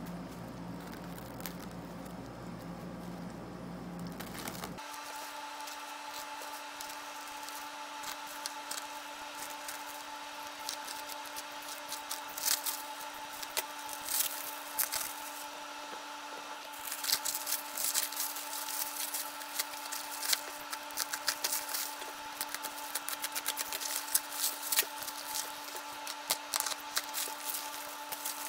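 Black plastic courier bag and its wrapping tape crinkling and tearing as a parcel is ripped open by hand: irregular sharp crackles and rustles, thickest in the second half, over a faint steady hum.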